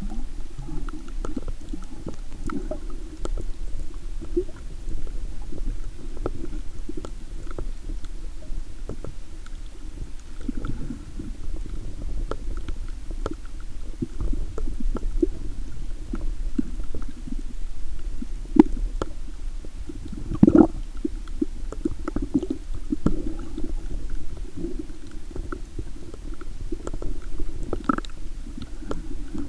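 Muffled underwater sound picked up through a waterproof camera housing: low rumbling water movement scattered with many small clicks and knocks, with one louder knock about two-thirds of the way through.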